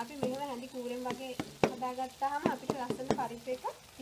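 Dhal curry being stirred in a steel pot: a spoon clicks and scrapes against the pot several times a second. Over it, a voice sings, holding long, wavering notes.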